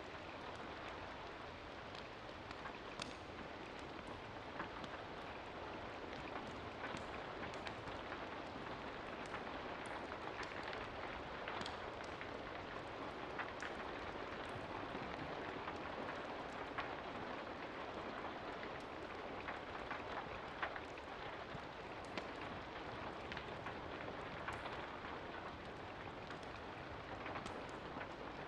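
Steady rain falling, an even hiss with many small scattered clicks and taps through it.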